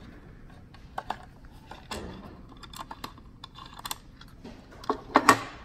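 Plastic belt cover and Torx screwdriver being handled as the cover is taken off a bike trainer: irregular small clicks and taps of tool and plastic, with a louder cluster of clacks near the end.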